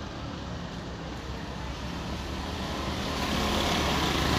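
Steady low rumble of a vehicle engine running, growing louder with a rising hiss about three seconds in.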